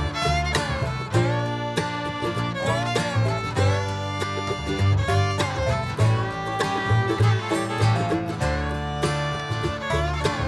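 Background music: an upbeat bluegrass-style tune with plucked guitar or banjo and fiddle.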